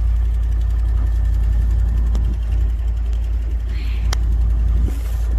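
Vehicle engine idling steadily with a low rumble, with two sharp clicks about two and four seconds in.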